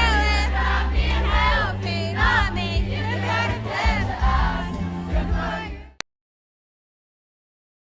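Live pop music with singing over a heavy bass backing, recorded from the audience at a concert. It cuts off abruptly about six seconds in, leaving dead silence.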